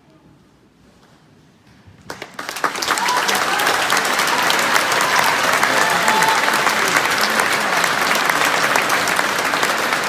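Audience applause breaking out about two seconds in, after a moment of near quiet as the final chord dies away, quickly building to dense, steady clapping.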